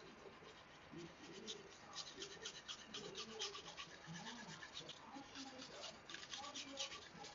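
Santoku knife blade being sharpened on a whetstone, rubbed back and forth in quick repeated strokes that give a rhythmic scraping.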